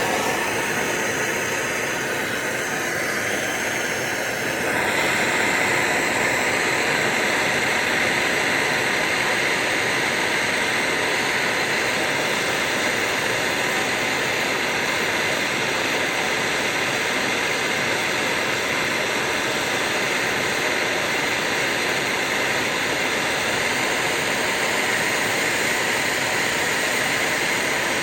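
Steady blowing hiss of a heating tool playing on the CR250's cylinder to heat it around a stuck head stud so the stud will come out; it gets louder about four and a half seconds in.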